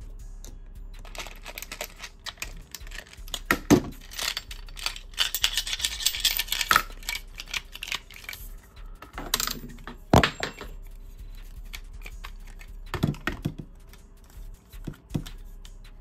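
Small hard objects clicking and clattering as screwdriver bits and tools are rummaged through and handled. There is a dense rattle about five to seven seconds in, and scattered sharper knocks around it.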